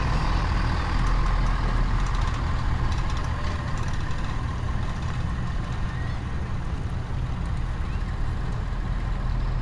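Ford Super Duty pickup's engine idling steadily, a low, even rumble.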